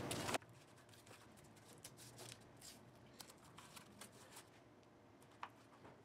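Masking tape being laid and pressed down by hand onto a protective sheet over a guitar body: a brief louder rustle at the start, then faint crinkling and light taps, with one sharper tick about five and a half seconds in.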